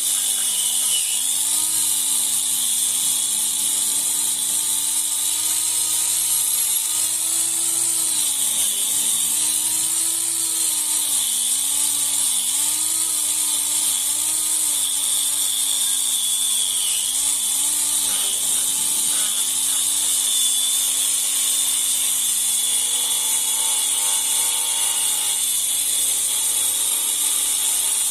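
Electric grinder running continuously against rusty metal, with a steady high scraping hiss. Its motor hum sags and recovers again and again as the tool is pressed into the work.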